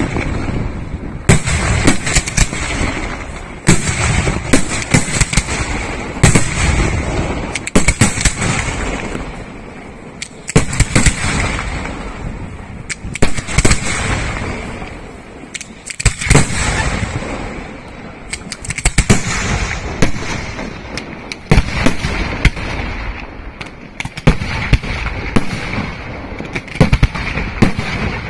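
Aerial firework shells bursting in rapid, irregular succession: many loud, sharp bangs over a continuous low rumble.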